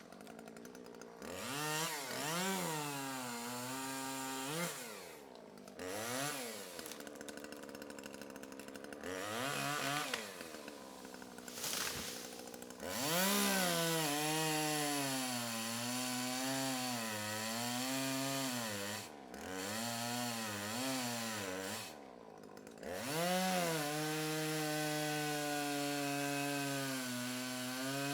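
Chainsaw revving up and down several times, then running at high speed in longer stretches while cutting small trees, its pitch wavering under the load of the cut.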